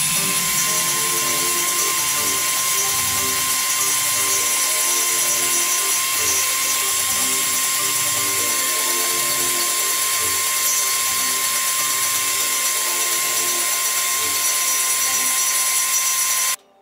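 Table saw running at a steady pitch, a fixed whine over a dense high hiss, with background music underneath. Both stop abruptly just before the end.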